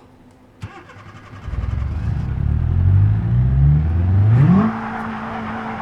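Old Ford engine running and being revved after a hard start. A sharp click comes first, then the engine note comes in loud a second and a half in and creeps up in pitch. About four and a half seconds in it climbs quickly and holds at a steady higher note.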